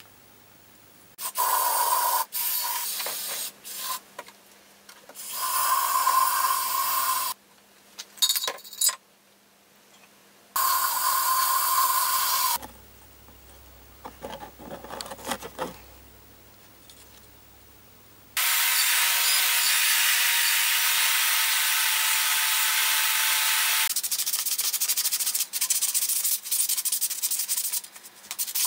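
Abrasive rubbing and sanding on metal brake-cylinder parts, in several bursts of a few seconds each with short quiet gaps between them. A longer, steady stretch of scrubbing starts about two thirds of the way through, and quicker short strokes follow near the end.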